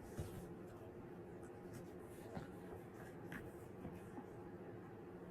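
Faint rustling of book pages being handled, with a few light clicks over a low steady hum.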